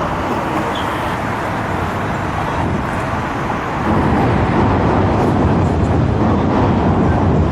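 City street traffic: a steady rush of road vehicles, which grows louder about four seconds in.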